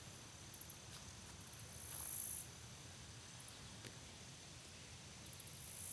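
Faint high-pitched insect calling, with a fast pulsing, swelling louder about two seconds in and again near the end, over a thin steady high tone.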